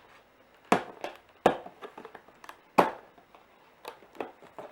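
Hands picking and pulling at the seal sticker on a cardboard headphone box, with three sharp snaps about a second apart and smaller ticks of fingernails on card between them.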